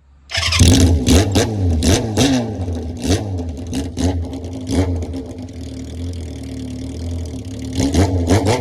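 Kawasaki Z400FX inline-four engine revving through a Kamikaze 4-into-1 collector exhaust and silencer. It gives a string of short, sharp throttle blips, settles to a steady idle for a few seconds, and is blipped again near the end.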